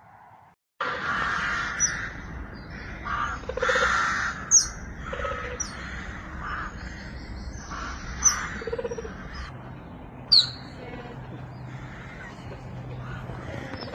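A bird calling: a handful of sharp, high chirps that slide downward in pitch, a few seconds apart, over a steady background noise.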